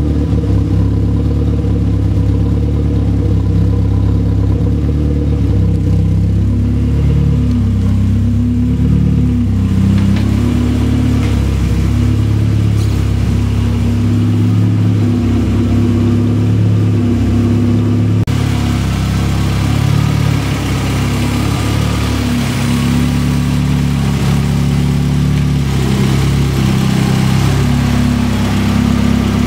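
Turbocharged engine of a Mazda MX-5 running on its first run, idling with repeated throttle blips that make the pitch rise and fall.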